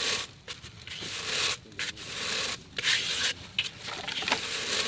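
Hot sand in an earthen pot stirred hard with a bundle of stiff broom sticks, a scraping hiss with each sweep, about one stroke a second, as rice is tossed through the sand to puff it.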